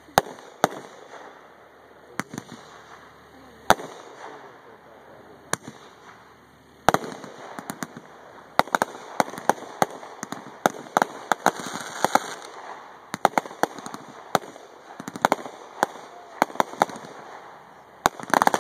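Aerial firework shells fired from mortars, bursting with sharp bangs. A few come spaced out at first, then from about seven seconds in they come thick and fast, several a second.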